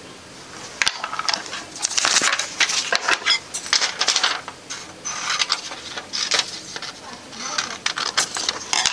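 Sheets of paper being handled, lifted and laid down on a table: crisp rustling and crinkling with sharp little clicks and taps that come in stretches.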